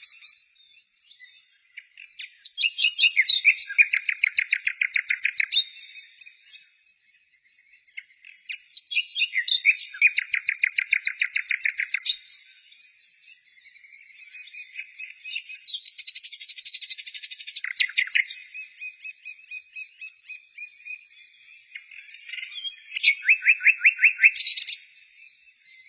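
Birdsong: four phrases of rapid, high-pitched trilled chirps, each a few seconds long, with quieter gaps between them.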